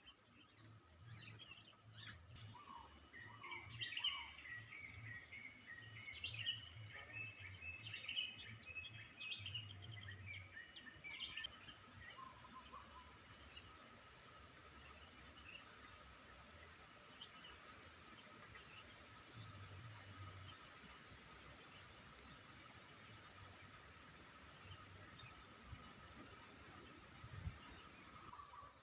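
Insects calling in a steady, unbroken high trill that starts about two seconds in and stops just before the end, with small birds chirping busily over it for roughly the first ten seconds.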